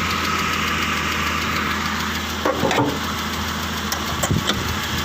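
Replacement ZMZ 406 four-cylinder petrol engine in a GAZelle van idling steadily, with a few light clicks. It was fitted in place of an engine whose hydraulic lifters were ticking, and the owner counts the problem as solved.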